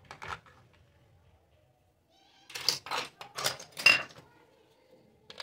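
Small plastic toy kitchen pieces clacking on a tabletop as they are set down. There are a couple of knocks at the start, then a quick run of louder clatters from about two and a half to four seconds in.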